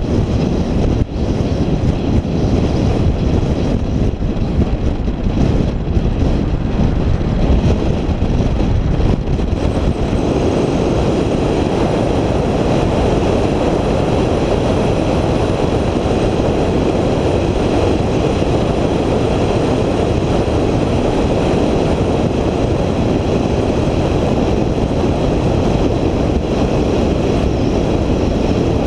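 Steady rumble of a moving vehicle with road and wind noise, uneven and gusty for about the first ten seconds, then even.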